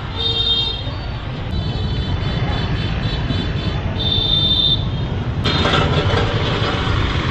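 Busy street traffic running steadily, with horns beeping in short bursts several times; the traffic noise grows louder about five seconds in.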